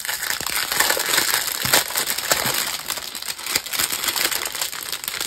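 Plastic packaging of a diamond-painting kit crinkling and crackling continuously as it is handled.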